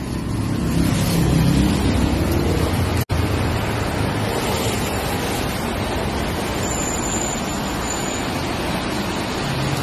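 Wind rushing across a phone's microphone over road traffic, a steady noisy roar. A vehicle's engine rumble is strongest in the first few seconds. The sound drops out for an instant about three seconds in.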